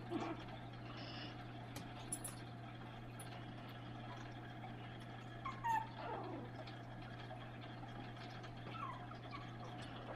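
Chihuahua puppies whimpering, with a few short yips and whines; the loudest is a falling whine about halfway through. A steady low hum runs underneath.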